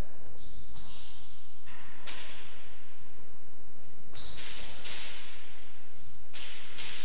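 A rackets rally: the hard ball struck by the rackets and hitting the walls, each hit echoing around the court, with short high squeaks from the players' shoes on the floor.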